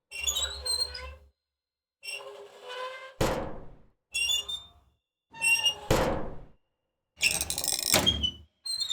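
A run of separate door sound effects: hinges creaking as doors swing, with three doors shutting with a hard thud about three, six and eight seconds in. Another creak starts at the very end.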